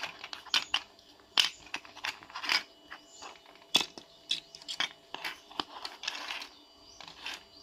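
Hard plastic model parts on their sprue being handled: irregular sharp clicks and taps, with a couple of brief scratchy rubs about two and a half and six seconds in.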